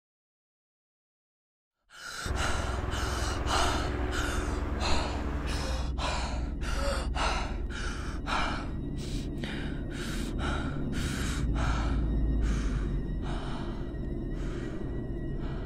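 After about two seconds of silence, a woman panting hard and out of breath: quick gasping breaths about two a second that slowly ease and grow fainter, over a low steady hum.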